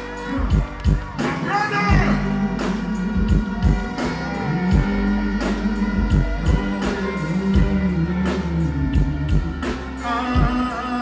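Music with a steady drum beat, a bass line and guitar, with a voice singing briefly near the start and again near the end.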